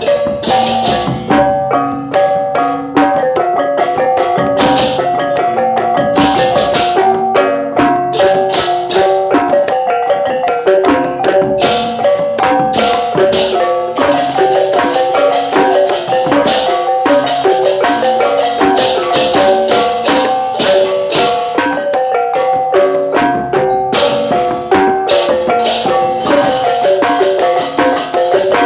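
Balinese gamelan ensemble playing: bronze metallophones ringing in fast, interlocking note patterns over frequent sharp percussion strokes.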